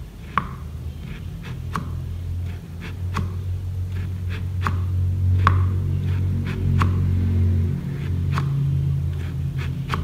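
Sharp kitchen knife slicing a fresh banana flower into thin rounds on a wooden chopping board: a run of crisp knife taps on the board, roughly three every two seconds, over a steady low hum.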